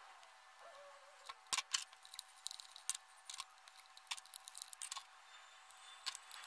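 Utility knife blade prying and scraping along the plastic seam of a Zebronics Noble Bluetooth speaker's casing, making faint, irregular small clicks and scrapes as the housing is worked open.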